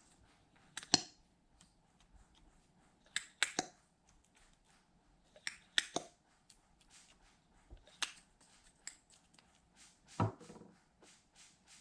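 Hands working slime, with sticky crackles and sharp clicking pops every two seconds or so; the loudest pop is about a second in.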